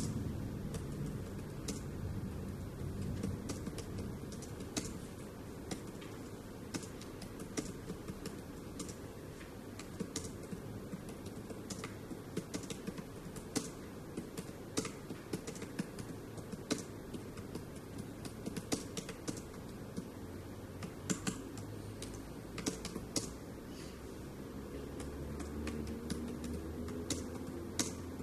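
Typing on a keyboard: irregular key clicks in quick runs with short pauses, over a low steady hum.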